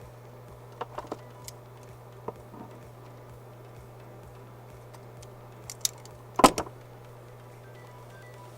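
Scattered small clicks and taps of hand tools and parts handled on a workbench while wires are spliced and soldered. The loudest is a sharp clack a little past six seconds in. A steady low hum runs underneath.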